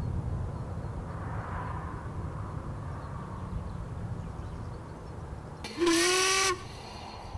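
A steam locomotive whistle gives one short, loud blast of under a second, a steady pitch with a slight rise at the start, about two-thirds of the way through, over a steady low outdoor rumble.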